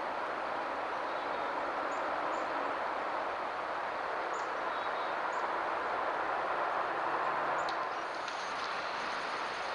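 Steady rushing background noise from a trail camera's microphone, with a few faint, very short high chirps scattered through it. A click comes near the end, where the footage cuts to another clip.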